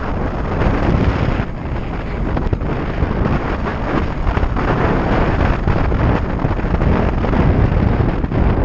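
Wind rushing over a GoPro's microphone during hang-glider flight: loud, continuous wind noise, mostly a low rumble that swells and dips slightly.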